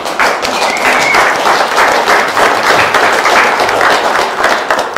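Audience applauding, a dense, steady clapping that dies down near the end.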